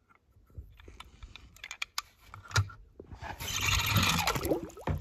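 Plastic toy cars knocking and clicking as they are handled, then a louder scraping, rushing noise for about a second near the end.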